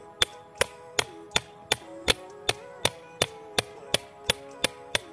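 Hammer blows on the back of a machete blade, a steady run of about three sharp metallic strikes a second, driving the blade into a thick Ficus microcarpa root to split it and hold back its growth. Sustained pitched tones sound under the blows.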